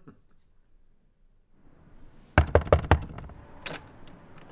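Knocking on a wooden door: four quick, sharp knocks about two and a half seconds in, then one fainter knock.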